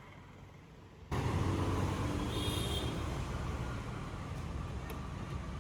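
Steady low rumble of motor-vehicle engine and road traffic that starts abruptly about a second in, with a short high-pitched tone about two and a half seconds in.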